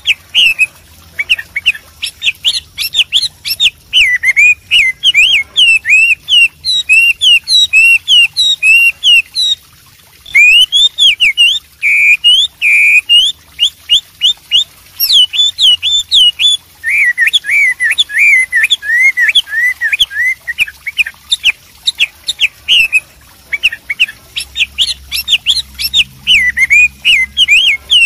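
Chinese hwamei singing a long, varied song of rapid, loud, sweeping whistled notes, phrase after phrase, with a brief pause about ten seconds in.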